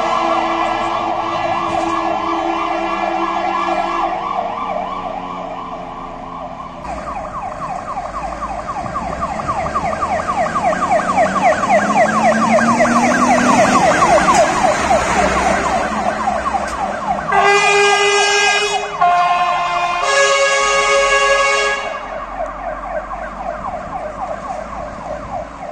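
Fire engine sirens on the move. A siren first fades with a falling pitch as one engine drives away; from about seven seconds a second fire engine, a Star truck, sounds a fast, yelping siren that grows louder as it pulls out, broken by three short horn blasts, before it fades into the distance near the end.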